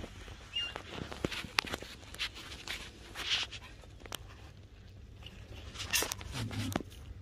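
Irregular light clicks, taps and short rustles of fine forceps being worked against a mouse eye on filter paper.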